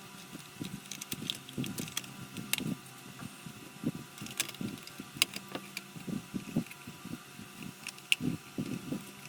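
Plastic scale-model car body and chassis being handled and fitted together: irregular light clicks and taps with soft low knocks of handling.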